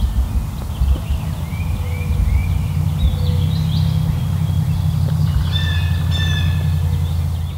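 Songbirds chirping and singing, with short whistled notes, over a loud steady low rumble.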